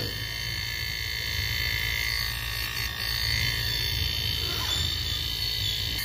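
Refrigerator compressor running on direct mains wiring, with a steady low hum, while it draws air at its intake. It is a weak unit that builds very little pressure, in the owner's judgement.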